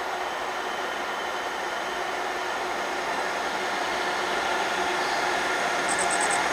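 Bombardier Traxx electric locomotive (E186) approaching at the head of a freight train of open coal wagons: a steady hum with a few held whining tones over wheel and rail noise, growing steadily louder as it nears.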